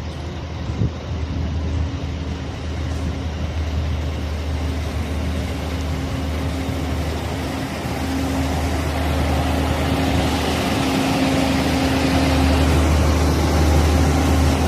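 A motor vehicle's engine running steadily with a low hum, under a hiss that grows louder in the second half.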